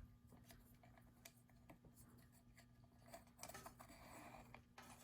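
Near silence: room tone with a faint steady hum and a few faint small clicks and rustles of handling.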